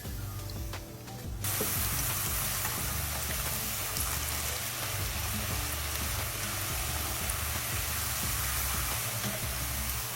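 Squash slices deep-frying in hot peanut oil in a cast iron Dutch oven: a steady sizzle that starts abruptly and loudly about a second and a half in.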